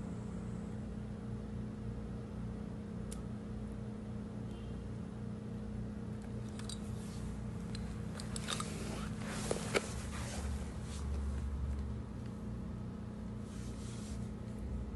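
Small clicks and crackles of plastic beads being handled on an elastic-cord bracelet, bunched in the middle with two sharper clicks close together, over a steady low hum.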